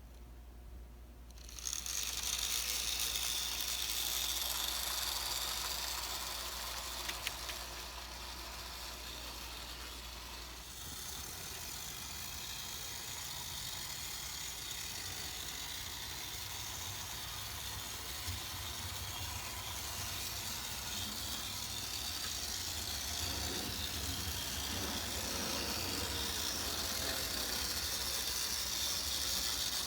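HO scale model locomotive running on the track, its small motor and gears whirring with a steady rattling hiss that starts about a second and a half in.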